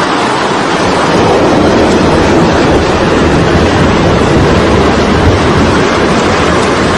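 Fast-flowing floodwater rushing down a street, a loud, steady noise of churning water that swells slightly about a second in.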